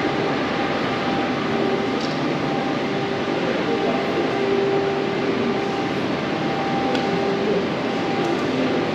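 Cairngorm Mountain Railway funicular car creeping into the station on its haul cable: a steady rumble of the cable running over the track rollers, with a humming tone that comes and goes.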